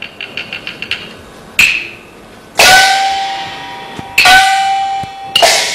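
Chinese opera percussion ensemble playing. A fast run of light taps comes first, then four crashing strikes of cymbals and gong, each fading slowly, with the gong ringing on a steady tone after the louder strikes.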